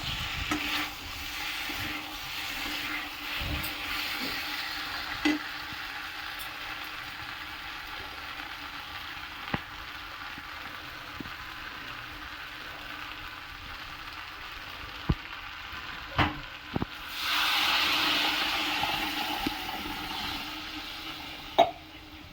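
Curry sizzling in a pan while it is stirred, with scattered sharp clicks of the spoon against the pan. About three-quarters of the way through the sizzle turns louder and brighter for a few seconds.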